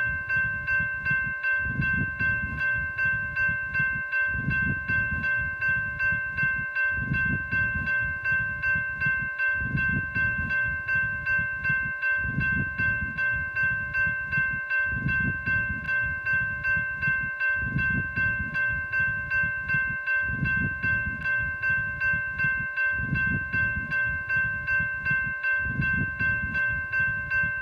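Safetran electronic railroad crossing bell (the "Type 2" E-bell) ringing continuously, an even, metallic ding of several fixed tones at about two strikes a second, over a low rumble. This is the warning signal a grade crossing gives to drivers and pedestrians of an approaching train.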